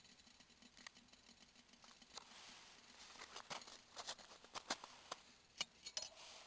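Aluminium camping kettle on an alcohol burner with its water near the boil: a faint hiss with scattered small ticks and pops. Near the end come a couple of louder clicks as the metal lid is taken hold of.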